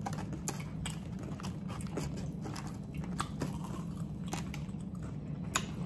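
Eating batter-fried chicken livers: chewing with short crisp crunches scattered through, over a steady low hum.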